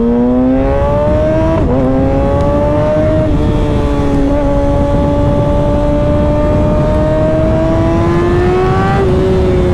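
2023 Kawasaki ZX-6R's inline-four engine pulling under load. The revs climb, dip briefly about a second and a half in as it shifts up, then rise slowly for several seconds, and fall near the end as the throttle closes.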